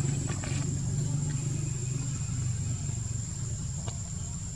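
A motor vehicle's engine running nearby as a low steady hum that slowly fades, under a constant high insect drone, with a few faint clicks.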